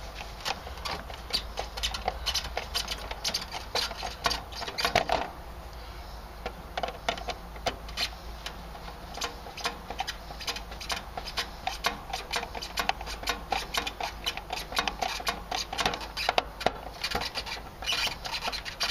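Rapid, irregular clicking and ticking of hand-tool work: a screwdriver turning screws into an air-conditioning condenser's metal control panel.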